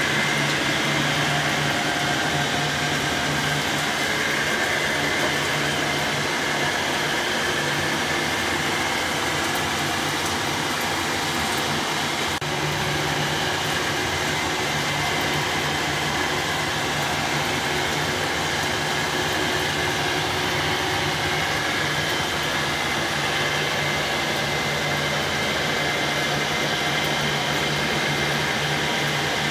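Steady machine noise: a low hum under an even rushing hiss, like a fan or motor running.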